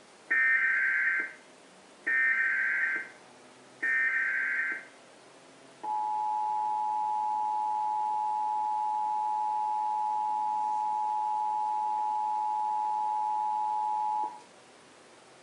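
Emergency Alert System signal: three bursts of SAME header data, each about a second long and a second apart, then the two-tone attention signal, a steady dual tone held for about eight seconds before it cuts off. Together they open an EAS activation, here the national test.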